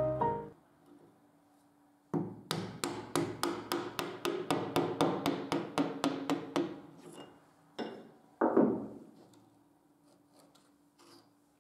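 A small hammer tapping a chisel wedged behind a wooden moulding strip on an old chest panel to pry it off: about twenty quick, even taps at roughly four a second, followed a little later by two or three separate knocks and a few faint clicks.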